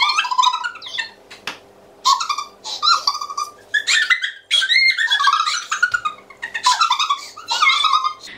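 Two women laughing hard in high-pitched squeals, in fits and bursts with short breaks to catch their breath.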